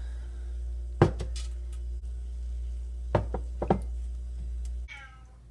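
A cup being handled on a hard counter: one sharp knock about a second in, a few lighter knocks after it, and two more a couple of seconds later. A steady low hum stops abruptly near the end, and a cat gives a short falling meow.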